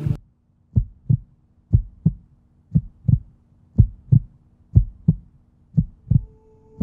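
Heartbeat sound effect: paired lub-dub thumps about once a second over a faint low hum. A steady higher tone comes in near the end.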